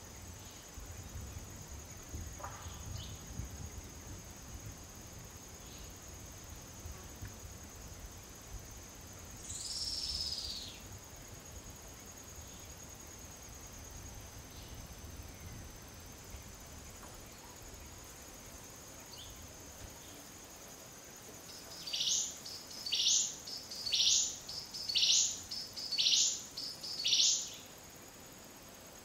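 Tropical forest ambience: a steady high-pitched insect drone, a single call sliding downward about ten seconds in, and near the end six loud bird notes about a second apart.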